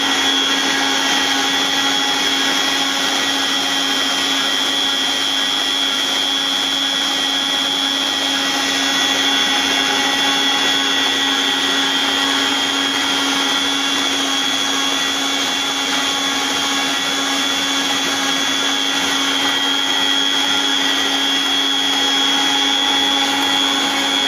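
Tilt-head stand mixer running steadily at its top speed with an even motor whine, kneading a wet, 100%-hydration pizza dough while the gluten develops.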